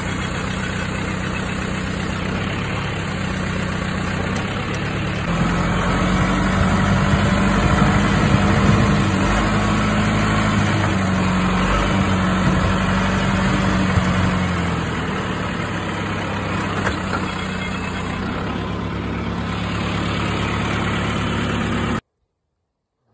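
John Deere 2755 tractor's four-cylinder diesel engine running steadily, growing louder from about five seconds in and settling back a few seconds later. The sound cuts off suddenly near the end.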